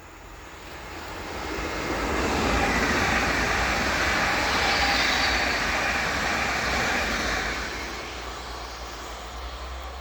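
PKP Intercity ED160 (Stadler FLIRT) electric multiple unit passing at speed. A rushing noise of wheels on rail swells over about two seconds, holds for several seconds, then fades as the train moves away.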